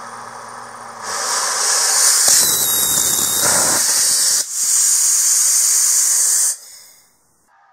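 Homemade ethanol and gaseous-oxygen rocket engine test-fired: a gas hiss starts about a second in, then the engine burns with a harsh rushing noise for about two seconds. After a brief break, a loud steady hiss of gas follows and then cuts off suddenly.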